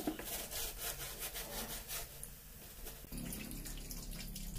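Faint crackling of rice-flour pakoras frying in hot oil in an iron kadai, then, about three seconds in, a kitchen tap running steadily into a steel sink as utensils are rinsed.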